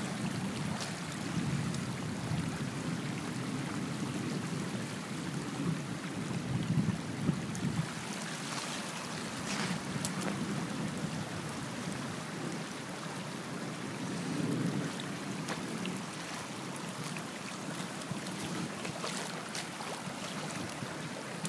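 Rainwater from an overflowing roadside ditch rushing in a sheet across grass and a driveway, a steady running and splashing.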